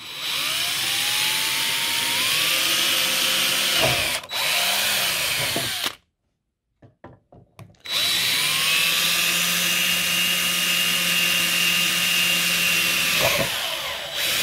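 Power drill boring pilot holes through a plastic enclosure's mounting holes. It makes two runs of several seconds each, the motor's whine climbing in pitch as it spins up. The first run has a brief stop, and a short pause with a few small clicks separates the two runs.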